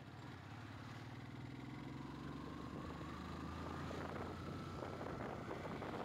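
Motorcycle engine running under way, its pitch slowly rising as the bike gathers speed, heard from a microphone mounted on the handlebars. Rough wind noise on the microphone builds in the second half.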